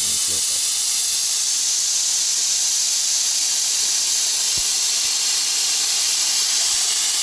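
Air hissing steadily out of a car tyre's valve stem as it is held open, letting pressure out of the tyre.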